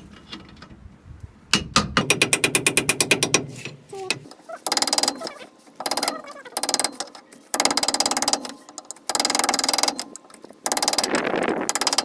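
Rapid light metal-on-metal tapping in several bursts: a hammer striking a screwdriver set behind a hub dust cap to knock the cap off.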